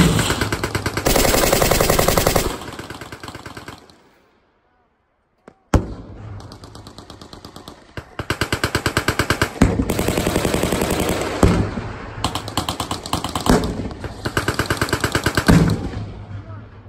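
Machine guns firing long bursts of rapid automatic fire, the bursts overlapping and echoing, with a short lull about four seconds in before the firing resumes.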